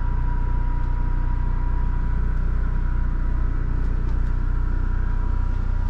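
Steady low hum of an RV's ducted air conditioner running, with a faint steady whine over it.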